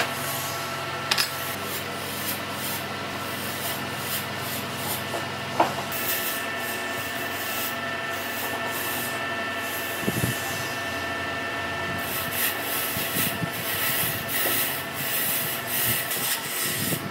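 A steady workshop machine hum with a few even tones, and over it a pencil rubbing on wood as a joint line is marked, with a few light knocks of the wood being handled.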